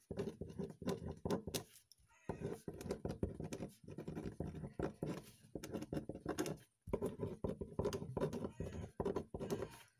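Pen writing quickly on a sheet of paper on a hard desk: rapid scratching strokes, breaking off briefly about two seconds in and again near seven seconds.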